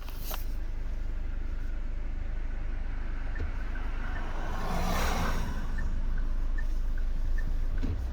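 A road vehicle running, a steady low rumble with a rushing swell that builds and fades about five seconds in.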